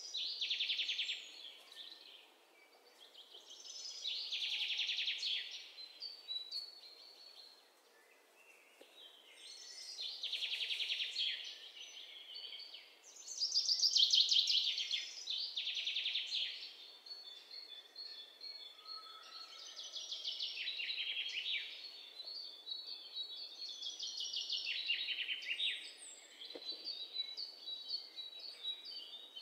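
Songbird singing: repeated high-pitched trilled phrases, each a second or two long with short pauses between, and a few held whistled notes toward the end.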